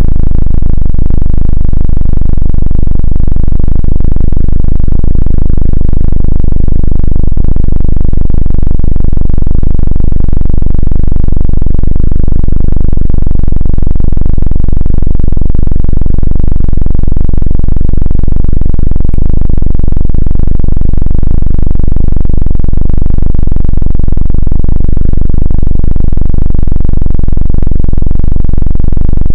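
Helicopter sound effect: a very loud, steady, distorted low rumble of rotor and engine, the 'dududu' throb, which starts abruptly and holds level throughout.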